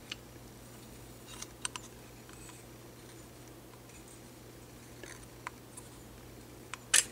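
Scattered light clicks and taps of fingers working the metal case of a 1972 Corvette dash clock off its movement, with a sharper double click near the end as the case comes loose. A faint steady low hum runs underneath.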